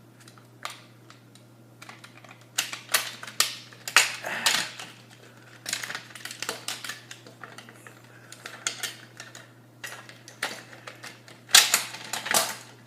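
Plastic parts of a broken Nerf gun being handled and pried apart: irregular clicks, snaps and rattles, busiest about a third of the way in and again near the end.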